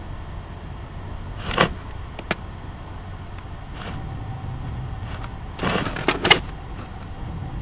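Sharp bangs over a steady low rumble. There is one loud bang about a second and a half in and fainter ones after it, then a quick cluster of three or four near the end, with the loudest last. The bangs are unexplained and heard as loud banging in the sky; they do not sound like thunder or an aircraft.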